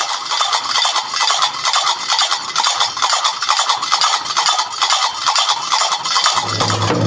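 Qraqeb (lgrraba), Moroccan iron double castanets, one pair in each hand, clacked together in a fast, steady rhythm of sharp metallic clicks.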